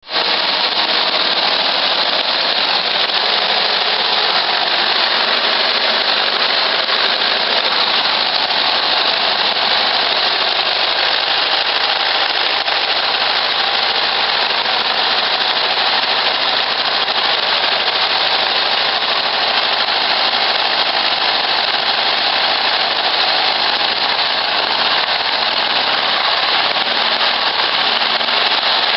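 Engine of a Herbie-replica Volkswagen Beetle running loud and steady, a fast, rough rattling exhaust note held at one speed without revving.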